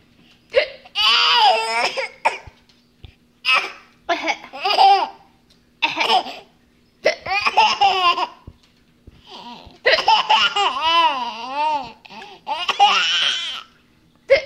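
A baby laughing through hiccups in a string of high-pitched bursts with short pauses between them, and one longer laugh near the end whose pitch wavers up and down.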